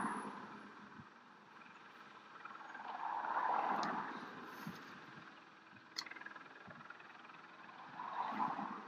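Bell Boeing V-22 Osprey tiltrotor taxiing, its twin turboshaft engines and proprotors running. The sound swells and fades about every four to five seconds. There is a single sharp click about six seconds in.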